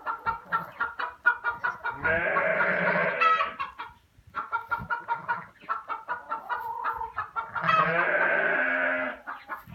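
Chickens clucking in quick runs, with two longer, louder calls, one about two seconds in and one near the end.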